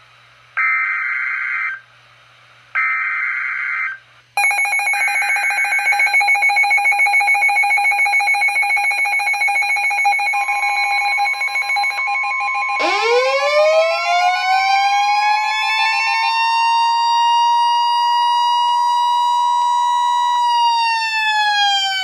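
NOAA Weather Radio alert for a Special Marine Warning: two bursts of warbling digital SAME header tones, then the receivers' alarms going off. A rapidly pulsing alarm tone starts after about four seconds, a steady attention tone joins about halfway, and a siren winds up a little later, holds, and winds down near the end.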